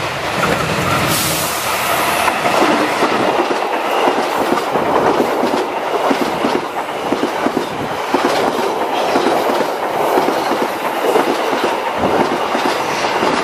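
Train wheels rolling over a railway switch, a continuous rumble with rapid clacking as the bogies' wheelsets cross the switch rails and frog.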